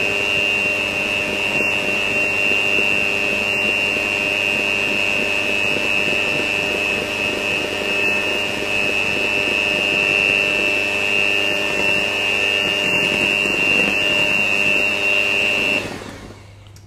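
Oster HeatSoft electric hand mixer running steadily with a high motor whine, its beaters working thick brownie batter; the motor switches off near the end.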